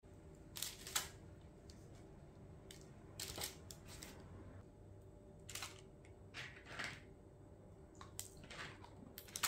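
Faint scattered taps and rustles of dry biscotti slices being set down on parchment paper on a baking tray, about a dozen short sounds over a faint steady room hum.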